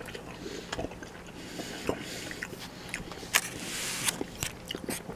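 A person chewing a bite of beef patty, with scattered soft mouth clicks and smacks.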